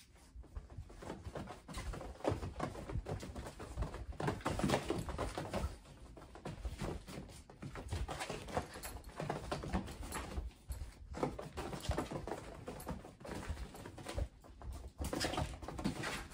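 Kittens scampering and wrestling on the fabric floor of a pop-up playpen: an irregular scuffle of paws and claws on fabric, in bouts that come and go.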